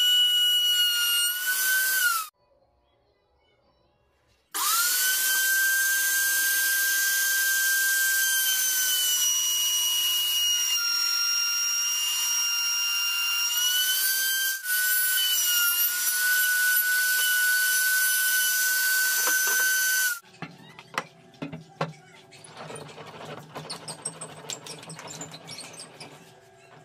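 Table-mounted router running with a high-pitched whine while routing hardwood, its pitch dipping slightly as the bit takes the cut. It drops to near silence for about two seconds, then spins back up with a rising whine and runs on until it stops about twenty seconds in, leaving faint clicks and a low hum.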